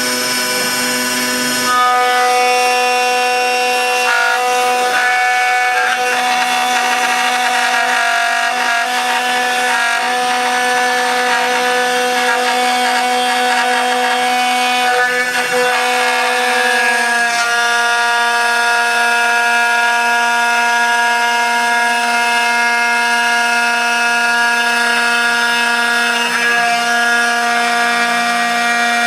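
CNC router spindle whining steadily as its cutter mills the neck outline through dense laminated Karri hardwood. The whine shifts in pitch about two seconds in and again around two-thirds of the way through.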